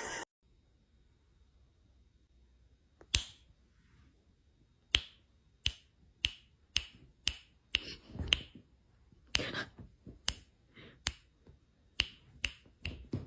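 Near silence, then from about three seconds in a run of short, sharp clicks or snaps at an uneven pace, roughly one or two a second.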